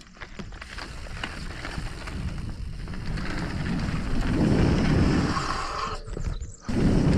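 Mountain bike riding a dirt jump trail: a few clicks at the start, then tyre and wind rumble building with speed. The rumble drops out for about half a second near the end and comes back suddenly.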